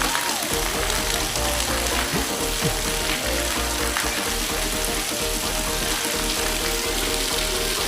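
Steady, even hiss of light rain, with music tones held underneath.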